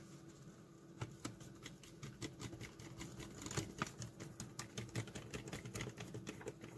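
Small precision screwdriver turning tiny screws into the plastic case of a solar power bank, with the case being handled: a run of faint, irregular clicks and ticks.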